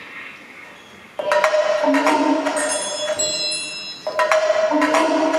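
Contemporary concert music with struck, ringing bell-like metallic tones over a held pitch. It enters suddenly about a second in after a near-hush, breaks off briefly near the end, and comes back in.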